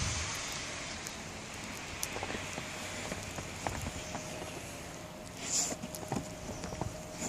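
Faint crunching and rustling footsteps in snow, with scattered small crackles and two louder crunches, one about five and a half seconds in and one near the end.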